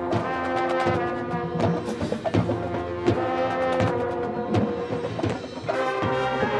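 Marching band playing: sustained brass chords over percussion, with repeated drum and timpani strikes.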